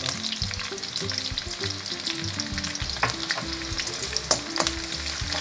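Curry leaves and green chillies sizzling and frying in hot oil in a kadhai for the tempering, with a spatula stirring them and a few sharp pops and clicks over the steady hiss.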